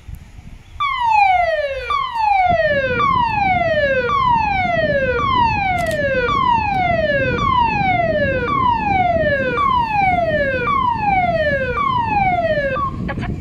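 Lifeboat station assembly siren calling the crew out for a launch: a loud falling whoop repeated eleven times, about one a second, which cuts off shortly before the end.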